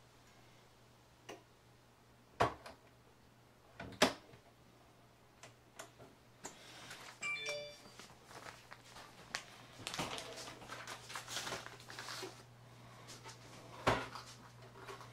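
Handling sounds at a countertop vacuum sealer and its bags: a few sharp clicks and knocks, the loudest about four seconds in and again near the end, with a stretch of plastic rustling in the middle. A steady low hum runs underneath.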